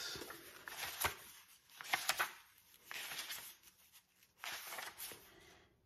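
Pages of a jacketed hardcover book being turned and the book handled: short bursts of paper rustling with a few light knocks.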